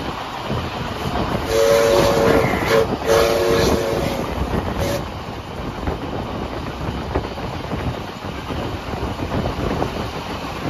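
Steam locomotive whistle sounding in two longer blasts and a short final toot over the running noise of a train on jointed track. The rumble and clickety-clack of carriage wheels continue throughout.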